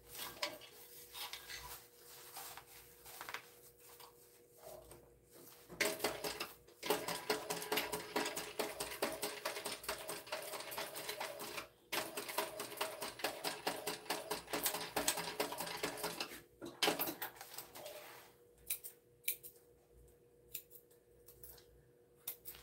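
Industrial walking-foot sewing machine stitching a seam in two runs of several seconds each, a rapid clatter of needle strokes with a brief stop between them. Sparser clicks of fabric handling come before and after, over a faint steady hum.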